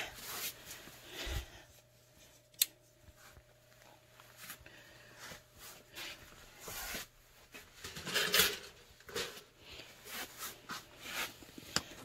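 Faint rustling and handling noises with one sharp click a couple of seconds in and a louder rustle about eight seconds in, over a low steady hum.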